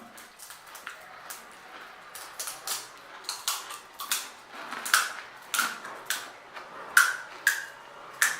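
Pani puri being chewed up close: the crisp fried puri shells crunching in sharp, irregular cracks, about two a second.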